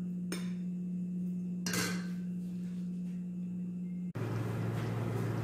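Bowls and a spoon clattering twice against a kitchen counter over a steady electrical hum. About four seconds in the sound changes to a steady rushing noise with a lower hum, from a gas stove heating lidded pots of water.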